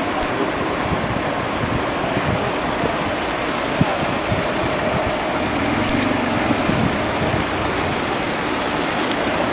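Steady street traffic noise, with a city bus engine idling close by.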